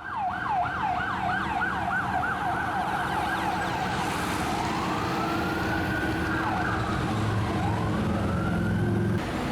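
Emergency vehicle siren going in a fast yelp, about four sweeps a second, then changing about four seconds in to two slow rising-and-falling wails, with low traffic hum beneath.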